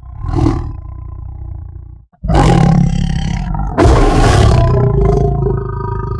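Saber-toothed cat (Smilodon) creature sound effect: a short snarl and low growl, then after about two seconds a long, loud big-cat roar that grows louder midway.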